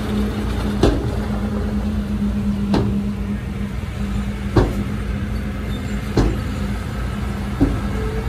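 Heavy earthmoving machine's diesel engine running steadily, with five sharp knocks spaced about one and a half to two seconds apart.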